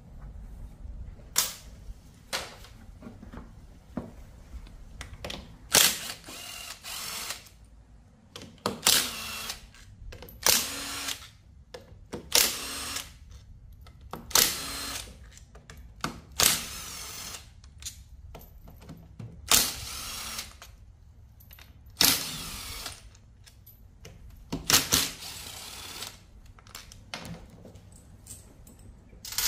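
Cordless power driver running in short bursts, over a dozen of them at irregular gaps, spinning out the transmission cover bolts on a scooter, with quieter clicks of hand tools in between.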